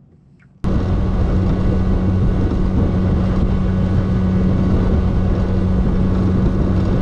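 Bass boat's outboard motor running steadily at speed, with air rushing past the microphone; it comes in suddenly about half a second in.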